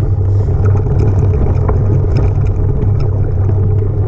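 Steady low rumble of wind buffeting and ride vibration on a handlebar-mounted camera as a bicycle rolls over a bumpy grass-and-dirt track, with light scattered clicks and rattles.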